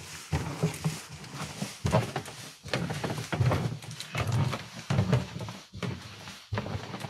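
Footsteps of people climbing a staircase: a string of irregular thumps, about one or two a second.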